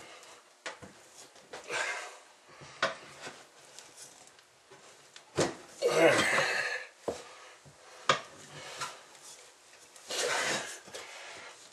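Metal pry tools clinking and scraping against a steel garden-tractor wheel rim as a new tire is worked over it by hand. Scattered knocks, with a louder scraping stretch about six seconds in and another near the end.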